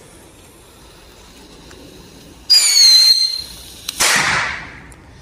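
Small firework rocket going off on the ground after failing to take off: about two and a half seconds in a loud high whistle that falls slightly in pitch for about a second, then a sharp bang about four seconds in.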